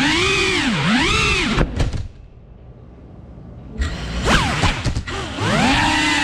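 Cinewhoop FPV drone's motors and propellers whining, the pitch rising and falling with the throttle. About two seconds in the throttle drops and the whine nearly stops, then it spins back up with a few sharp knocks before the steady whine resumes.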